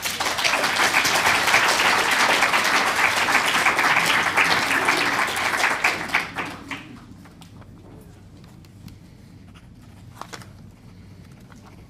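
Audience applauding for about six and a half seconds before it dies away. Then a few faint knocks follow.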